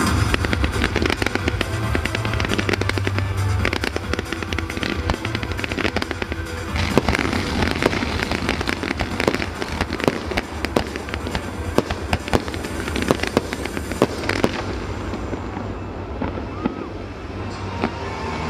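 Fireworks display: a dense run of rapid pops and sharp bangs from aerial shells and ground fountains, thinning out near the end.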